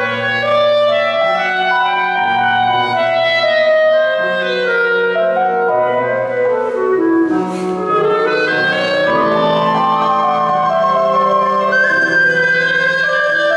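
Clarinet playing a melody over piano accompaniment, with a run that falls and climbs back about halfway through. Near the end a friscaletto, the Sicilian cane flute, comes in with a high held line.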